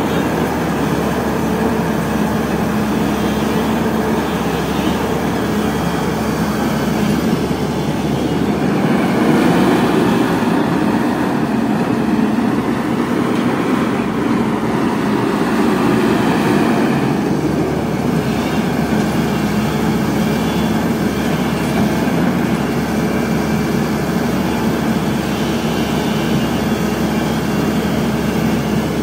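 Caterpillar 320D hydraulic excavator's diesel engine running steadily under working load, with its hydraulics working the boom and bucket. It grows a little louder for a stretch in the middle.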